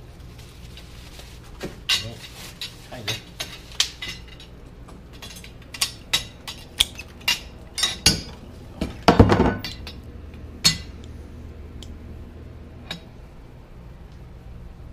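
Metal pressure-washer wand pieces and bolts clinking and knocking as they are handled and taken apart. It is a run of sharp metallic clinks, with a longer, louder rattle about nine seconds in.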